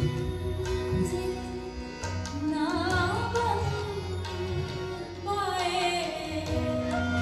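Live South Asian light-classical music: a female singer's ornamented, wavering vocal runs over a steady held drone and a hand-drum beat.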